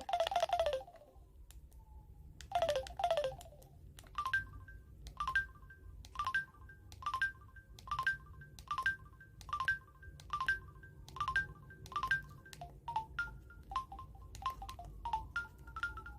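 Samsung Anycall SCH-S530 cell phone playing a polyphonic ringtone through its speaker. Two falling swoops come in the first few seconds, then a repeating pattern of short, clicky electronic notes about once a second.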